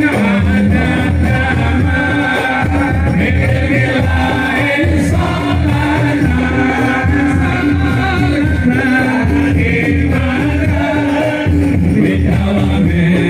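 Sholawat, an Islamic devotional song, sung by a male lead singer with musical accompaniment, the voice holding long notes.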